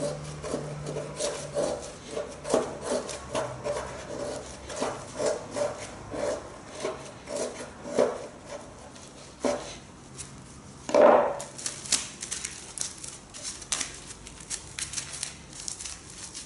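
A knife blade carving into wood in repeated short scraping strokes, the kind that raise fire-starting shavings. The strokes come quickly at first, then more sparsely, with one heavier cut near the middle.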